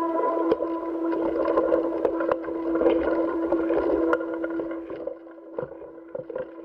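Steady hum with one constant tone, with frequent clicks, knocks and rubbing noise over it: the sound track of helmet-camera footage from a spacewalk. The knocking is busy for about four seconds and then dies down to a quieter hum with occasional clicks.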